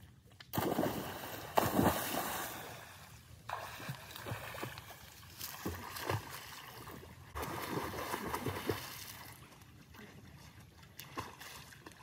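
Water splashing and sloshing in repeated bursts, loudest in the first few seconds and again in the latter half.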